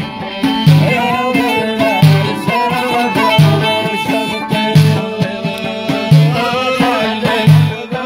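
Amazigh folk music: a lotar (long-necked lute) played with a fiddle, over a low beat that falls about every second and a half.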